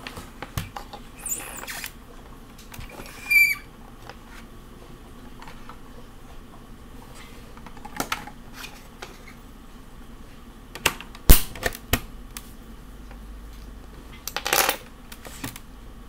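A Cherry G80-11900 mechanical keyboard being handled: it scrapes and shifts a few times in the first few seconds. Then come scattered single clacks and knocks, the loudest a sharp clack about eleven seconds in, and a short rattle near the end. There is no run of typing.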